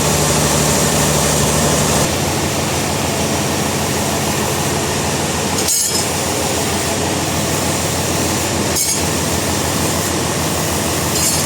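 Sawmill machinery running: a steady engine hum under a loud mechanical rattle and clatter, changing abruptly about two, six and nine seconds in.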